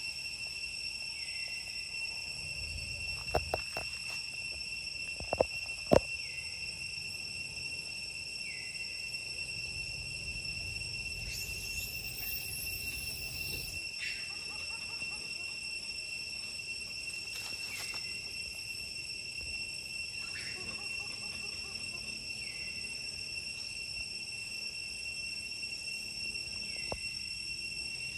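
Steady, high-pitched insect drone that runs on unbroken, with a few sharp cracks about three to six seconds in.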